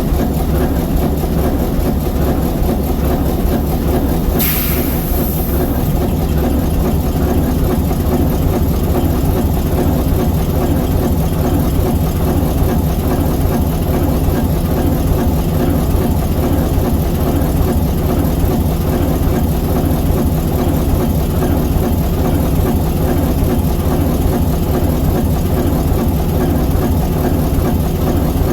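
ALCO S4 locomotive's 539T turbocharged inline six-cylinder diesel prime mover running steadily. A short hiss cuts in about four seconds in and lasts about a second.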